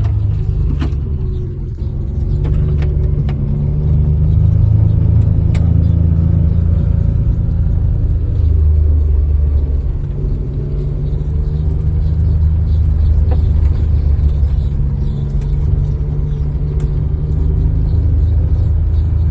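Steady low rumble of a vehicle's engine and tyres while moving, with a few small clicks or rattles.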